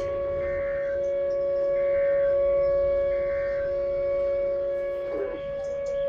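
Outdoor warning siren sounding a steady tone for a tornado warning. It grows louder and then fades again as the siren turns. A fainter second tone cuts in and out about once a second underneath.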